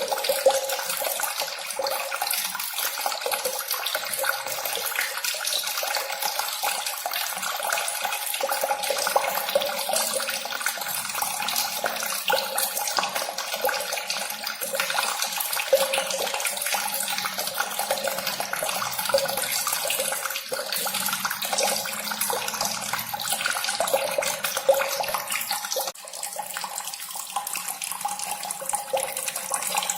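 Running, splashing water as a steady rushing noise, briefly dropping in level about 26 seconds in.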